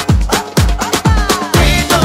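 Background dance music with a steady kick drum, about two beats a second; a held chord comes in about a second and a half in.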